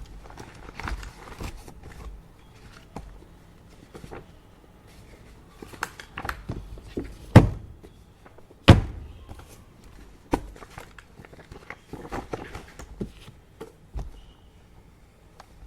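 Office desk handling sounds: scattered light clicks and rustles, with two loud thunks a little over a second apart near the middle as something is set or knocked down.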